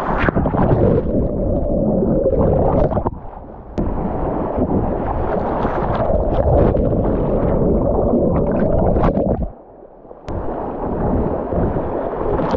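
Whitewater rapids rushing and splashing right at the microphone as a kayak crosses a drop. The sound falls away twice, briefly about three seconds in and for under a second about three quarters of the way through.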